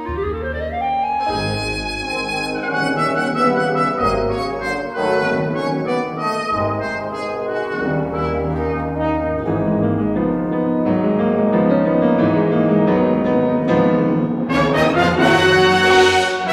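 Instrumental background music. It opens with a rising sweep, carries on in sustained, layered notes, and grows fuller and louder near the end.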